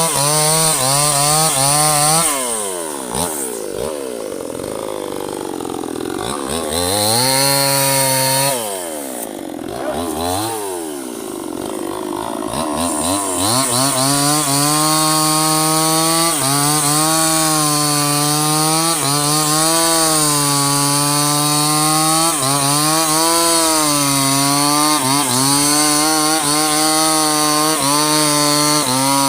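Two-stroke chainsaw cutting into a teak trunk at high revs. Its pitch falls away and climbs back twice, about three and nine seconds in, then stays high with small dips as the chain works through the wood.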